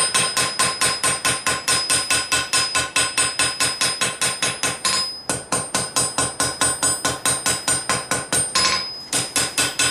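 Hand hammer striking hot steel on an anvil, forging a forge-welded san mai billet into a knife blade: a fast, even rhythm of about five blows a second, with the anvil ringing under each blow. The hammering stops briefly about five seconds in and again near the end.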